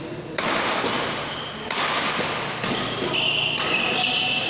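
Badminton court noise: thuds and scuffing of players on the court.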